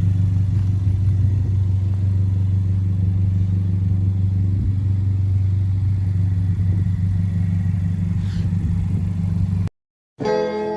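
A car engine, plausibly the 10th-gen Civic Si's 1.5-litre turbo four, idling with a steady, even hum. It cuts off suddenly near the end, and guitar music starts.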